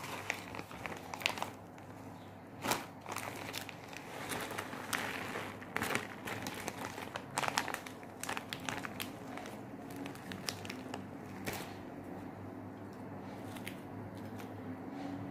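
Irregular crinkling and rustling of handling noise, with scattered sharp clicks, for about twelve seconds, then it settles. A low steady hum runs underneath.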